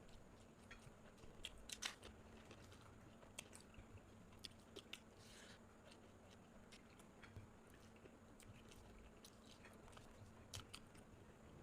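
A person chewing and biting food close to the microphone, faint, with scattered short crunchy clicks.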